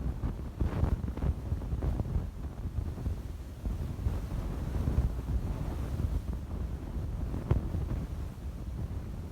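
Wind gusting and buffeting the microphone during a snowstorm, an uneven low rumble, with a sharp click about seven and a half seconds in.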